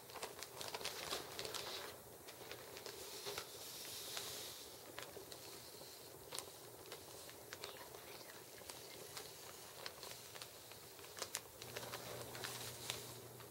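A plastic zip-top bag crinkling faintly as it is handled and opened, in scattered short crackles.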